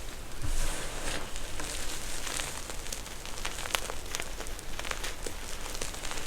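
Crunchy slime being squished and worked by hand, giving a steady crackle of many small sharp pops, with a louder squelching swell about half a second in.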